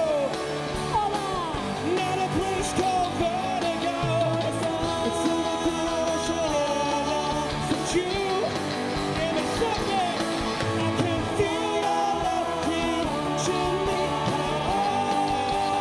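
A live rock band playing, with electric guitar and drums under voices singing long, slightly wavering held notes.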